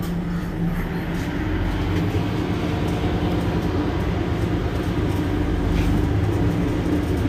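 Mercedes-Benz Citaro C2 Hybrid city bus's diesel engine running steadily.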